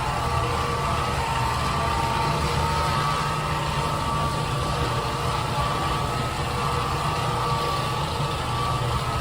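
A machine motor running steadily at a constant level, with a low hum and a few steady higher tones.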